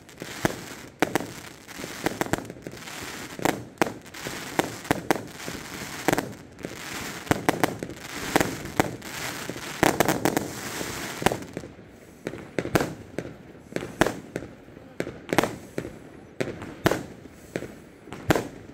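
Aerial fireworks going off: a fast run of bangs over crackling, which thins to separate bangs about twelve seconds in.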